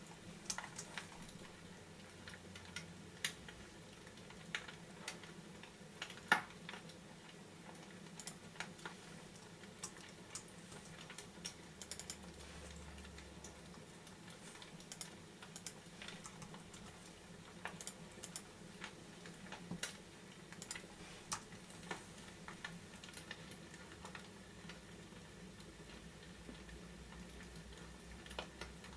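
Fireplace crackling: sparse, irregular sharp pops and snaps over a faint steady hum.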